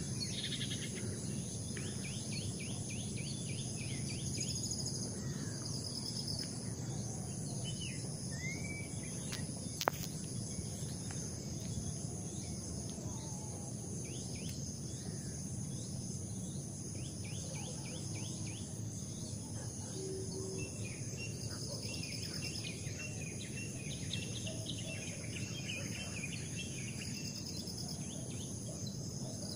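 A steady high-pitched insect chorus of crickets trilling, with short runs of small birds chirping over it and a low rumble underneath. One sharp click about ten seconds in.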